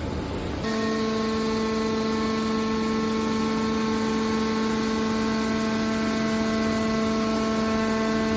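Steady machine hum at one constant pitch, starting abruptly about a second in after a short noisy rush: a hydraulic scrap-metal baler's power unit running.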